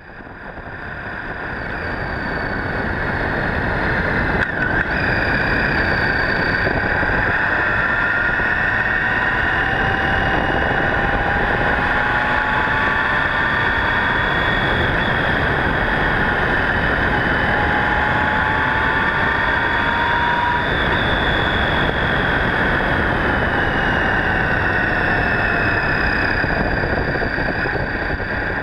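Honda GL1800 Gold Wing motorcycle riding at road speed, heard from a camera low on the front fairing: steady wind and road noise over the flat-six engine. The engine's pitch slowly rises and falls. The sound fades in over the first few seconds.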